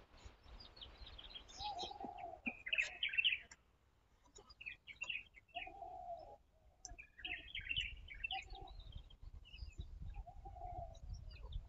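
Birds chirping, in bursts of quick high notes with a few lower calls among them and short quiet gaps between.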